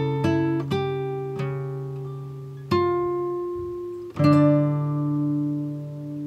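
Background music on a plucked string instrument: a few single notes, then two chords about a second and a half apart that are left to ring out and die away.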